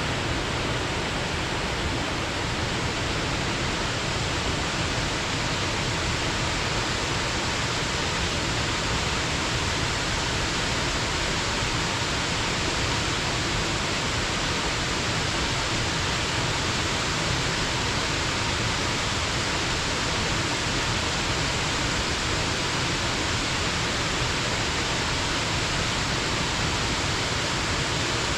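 Shinja Falls, a mountain-gorge waterfall: water falling and splashing in a steady, even rush that does not change.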